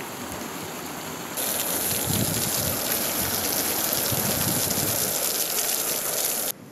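Fountain water jets splashing as a steady hiss. About a second and a half in it turns louder and brighter: close splashing of a ground-level jet spurting from a grate and falling back onto wet paving.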